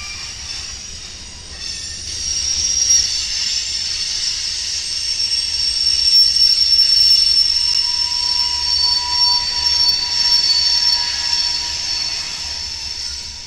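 Freight train's covered hopper cars rolling past, their steel wheels squealing on the rails in a high, steady screech. The squeal starts about two seconds in and holds until near the end.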